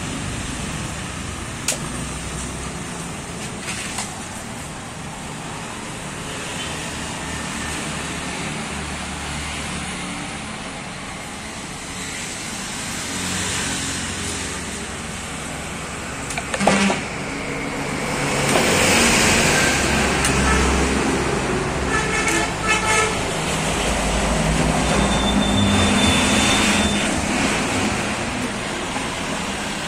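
Passing road traffic: a steady hum of vehicles that swells as they go by, louder in the second half. A few sharp knocks of a knife against a wooden chopping block stand out above it, one early and one a little past the middle.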